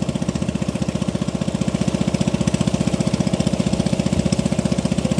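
Small boat engine running steadily, with a fast, even thumping beat.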